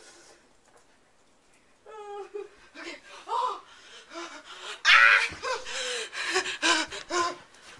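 A child laughing in short, breathy bursts after a quiet start, loudest about five seconds in.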